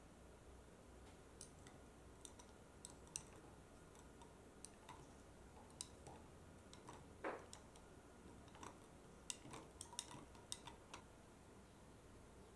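A long metal spoon stirring in a tall drinking glass, making scattered light clinks and taps against the glass, with one fuller knock about halfway through.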